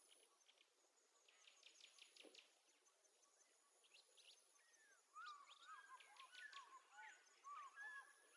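Faint birdsong: a quick run of chirps about a second and a half in, then from about five seconds in a warbling song of short, gliding notes.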